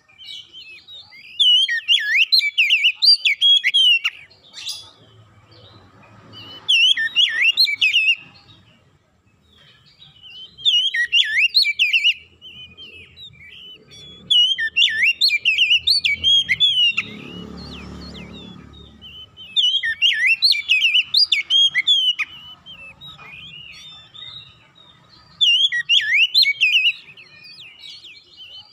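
Oriental magpie-robin (kacer) singing its loud, varied warbling song in repeated phrases of two to three seconds with short pauses between them. A low rumble sounds briefly about two-thirds of the way through.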